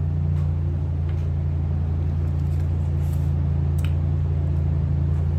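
A steady low electrical hum, with a few faint crisp clicks of someone chewing freeze-dried peas.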